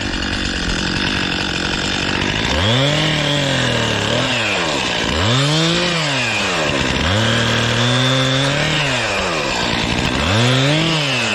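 Gas chainsaw running steadily at first. From about two and a half seconds in it is revved up and let back down four times in short bursts, as when cutting brush and branches.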